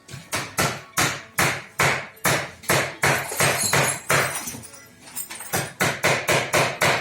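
Repeated hammer blows, about two to three a second with a short pause about five seconds in, some ringing briefly like struck metal, as in knocking on car brake parts.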